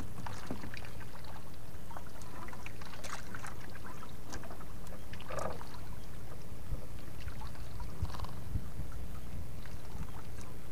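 Steady low rumble and water sounds around a small fishing boat at sea, with a few light knocks scattered through.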